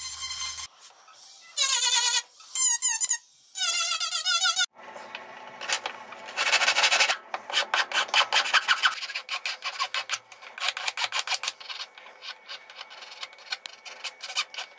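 Background music with a warbling, high singing voice for the first few seconds. Then quick, repeated strokes of a needle file rasping on the small wooden ring as it is shaped.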